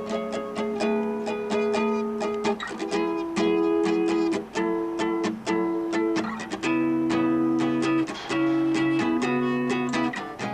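Solo acoustic guitar playing an instrumental passage of picked notes and chords in a steady rhythm.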